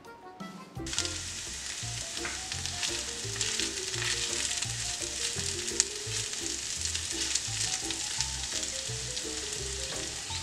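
A scramble of eggs, sausage, potatoes and bell peppers sizzling in a cast-iron skillet. The sizzle starts about a second in while a wooden spatula stirs the pan, with background music under it.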